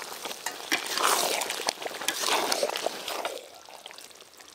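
Thick meat curry being stirred in a steel kadai with a long metal ladle: wet, sloppy stirring sounds with light clicks of the ladle on the pan. It fades near the end. The curry is at the stage where the oil has begun to separate from the meat.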